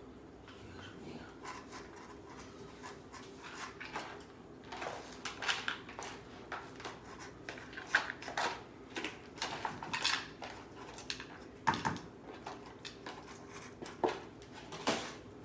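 Irregular light clicks, taps and scrapes of a utensil working wet cat food out of a plastic tray and of plastic food trays and bowls handled on a tile floor, with a few sharper knocks.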